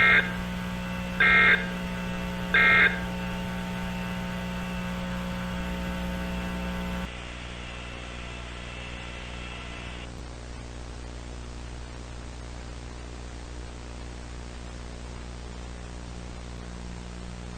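Three short bursts of EAS SAME end-of-message data tones, about a second and a quarter apart, marking the close of the emergency alert. They sit over a steady electrical hum, which drops lower about seven seconds in and leaves a faint hum and hiss.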